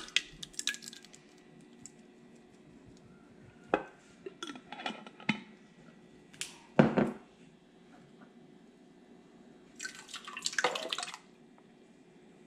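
Thick tomato sauce glopping out of a glass jar into a Crock-Pot, with a few knocks of the jar against the pot. Diced tomatoes then plop out of a can for about a second near the end.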